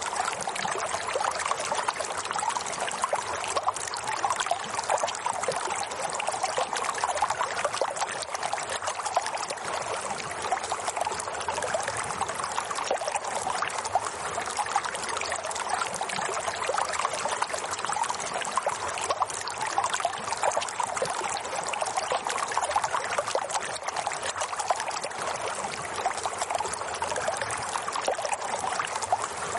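Steady running water, a continuous trickling flow with fine splashing detail and no change in intensity.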